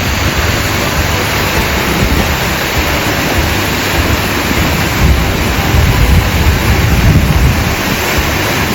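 Minnehaha Falls, a waterfall partly frozen over, pouring with a loud, steady rush of falling water and an uneven low rumble underneath.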